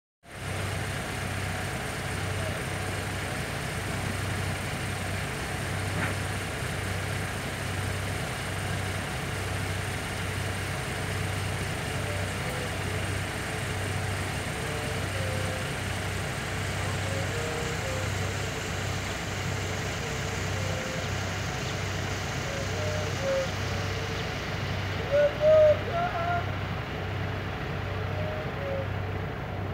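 Diesel engine of a telescopic handler running steadily with a low, evenly pulsing drone. A few short shouts stand out about 25 seconds in.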